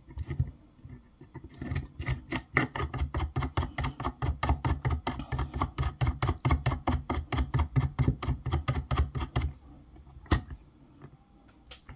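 Rapid, even mechanical clicking, about six clicks a second for some eight seconds, as the tensioning knob of a suction-cup phone screen separator clamp is turned to pull the display up. A single sharp click follows near the end.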